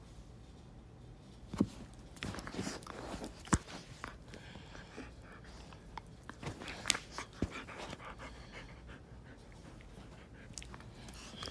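Husky play-fighting at close range: its breathing and mouthing noises mixed with scuffling, and a few sharp knocks, the loudest about one and a half and three and a half seconds in.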